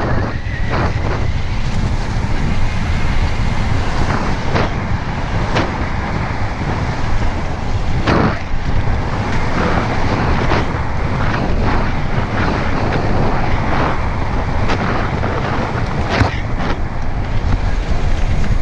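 Wind rushing over the microphone during a fast descent on a slippery dirt trail. Sharp knocks and rattles come through it every second or two as the rider goes over bumps.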